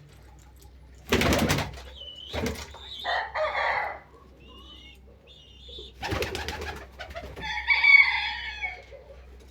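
Domestic birds calling twice, the calls at about 3 s and 7.5 s in, the second the louder, with short noisy rustling bursts before each.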